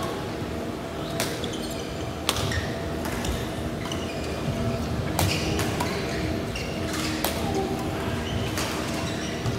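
Badminton rally: rackets hitting a shuttlecock back and forth, sharp pops about once a second, over a steady low hum.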